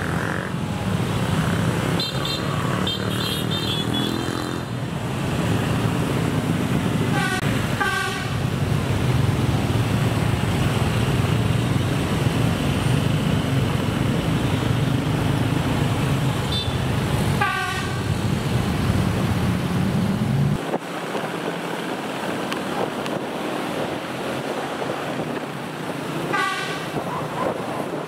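Short horn toots, three of them spaced roughly ten seconds apart, over the steady low rumble of engines in street traffic. The rumble cuts off abruptly about three-quarters of the way through.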